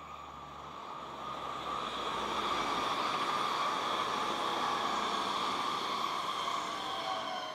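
Two coupled TER regional passenger multiple units passing at speed: a rush of wheels on rail that builds over the first couple of seconds, holds steady, then starts to fade near the end, with a whine that drops in pitch as the train goes by.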